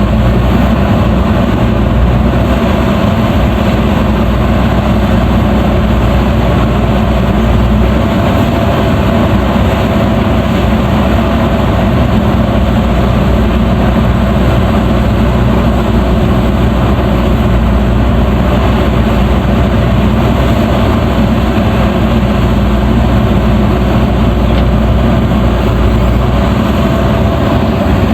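Diesel engine of a JCB backhoe loader running steadily and loudly while digging, with a deep hum and no clear revving.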